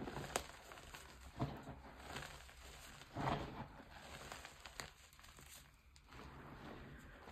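Hands squeezing and crumbling handfuls of powdery gym chalk, giving soft crunching and crackling, with sharper crunches about half a second, a second and a half, and three seconds in.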